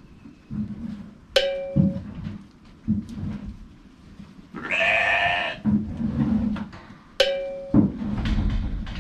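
Shetland sheep bleating once, a call of about a second midway, among repeated low thuds. Two sharp knocks with a short ringing tone come about a second and a half in and near the end.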